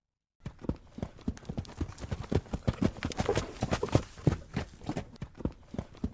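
A sound effect of fast, clattering beats, several a second, in an uneven rhythm, starting suddenly about half a second in after silence.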